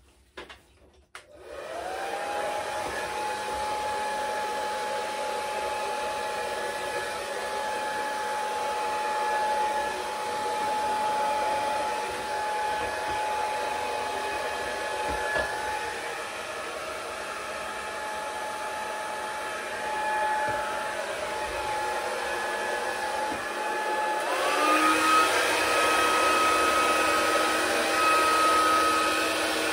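Hair dryer switched on, its whine rising as it spins up about a second and a half in, then running steadily to blow wet pouring paint across the canvas. About five seconds before the end it is switched to a higher speed: the whine glides up in pitch and the rush of air gets louder.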